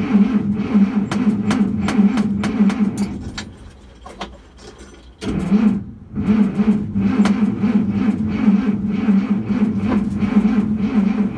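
Starter motor cranking the Dodge D300's Slant Six engine over in a pulsing rhythm. The cranking stops about three and a half seconds in, starts again about five seconds in, pauses briefly, then carries on.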